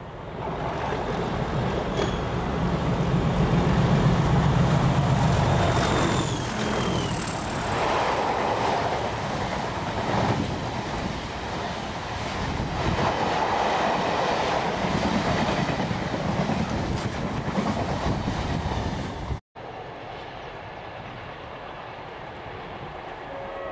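Class 37 diesel-hauled freight train passing close by at speed: the locomotive's low engine drone is loudest in the first few seconds, then a long rake of box wagons clatters past over the rail joints, with a brief high wheel squeal about six seconds in. After a sudden cut, the train is heard more faintly as it runs away.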